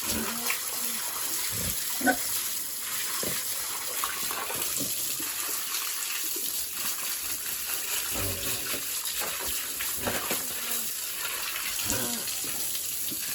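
Water running steadily from a hose, with a few brief knocks, the sharpest about two seconds in.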